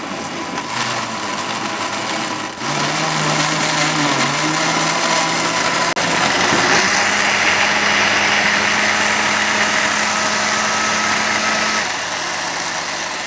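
Electric countertop jug blender switched on and running loud and steady, chopping apple chunks and other fruit into a smoothie. Its motor hum steps up in pitch a few seconds in and again near the middle, then drops back a little near the end.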